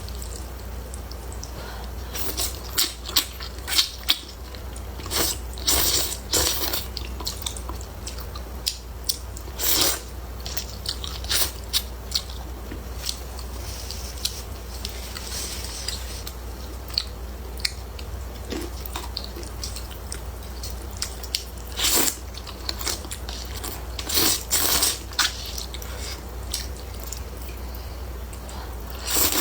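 Close-miked eating of hot and sour noodles: chewing and mouth sounds with short, sharp crunchy bites and smacks coming irregularly every second or so, over a steady low hum.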